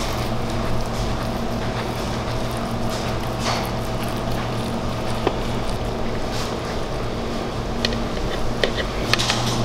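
Steady machine hum of a restaurant kitchen, such as an exhaust fan or refrigeration, with a few light clicks of a utensil near the end.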